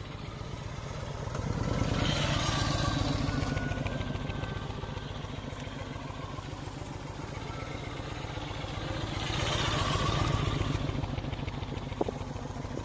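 Yamaha Midnight Star cruiser's V-twin engine running at low speed during tight slow turns, growing louder twice as it comes round, with a single sharp click near the end.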